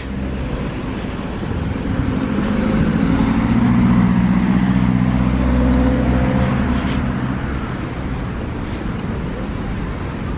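Road traffic with a vehicle's engine hum close by. The hum grows louder over the first four seconds or so, then slowly fades as the vehicle passes.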